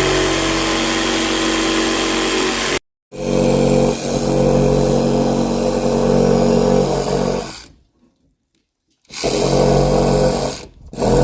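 A power tool's motor running at a steady pitch in several stretches, each broken off by a sudden gap of silence.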